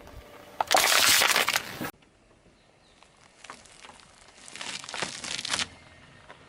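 Objects being crushed under a car tyre: a loud crunching burst lasting about a second, then a few seconds of crackling and snapping as the pieces break up.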